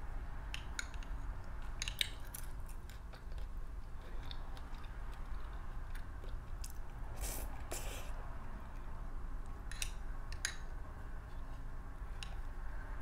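Eating sounds: a metal spoon clinking and scraping in a glass dish of ice cream, with chewing and mouth sounds as the nutty sundae is eaten. The sharp clicks come a handful of times, spread unevenly, over a steady low hum.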